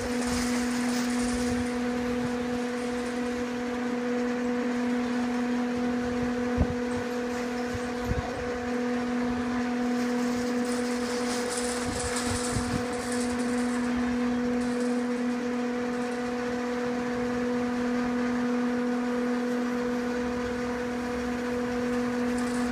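Chairlift machinery running with a steady, even hum, one low tone and its overtones, joined by a couple of short knocks around a third of the way in.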